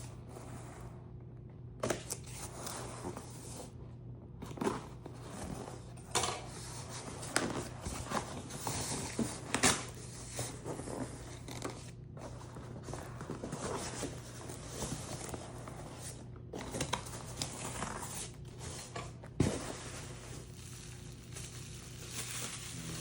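A package being opened by hand: packaging tearing, being cut and crinkling, with scattered clicks and knocks as it is handled.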